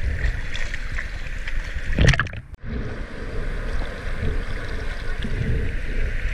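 River water splashing and lapping around a camera held at the water's surface, over the steady rush of a fast-flowing river. There is a louder splash about two seconds in, then a sudden brief break.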